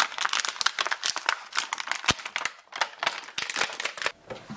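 Clear plastic packaging crinkling and crackling as an action figure is worked out of its blister tray, with rapid irregular clicks and a light knock about two seconds in.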